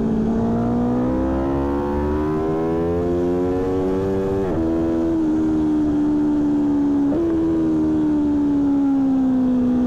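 Aprilia Tuono V4 1100 Factory's V4 engine running hard on track, heard from a mic in the front fairing with some distortion. The revs climb steadily, a gear change cuts in about four and a half seconds in and the pitch steps down, and after a second brief break near seven seconds the revs slowly ease off.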